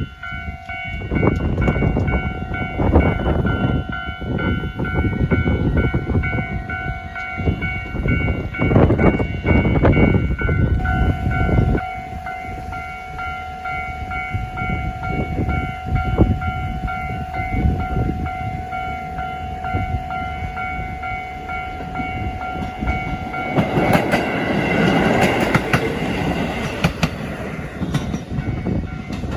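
Level-crossing warning bell ringing steadily while a diesel train runs over the crossing, loud with wheels clacking over the rail joints for about the first twelve seconds. The bell stops a little over three quarters of the way through, followed by a brief rush of broader noise.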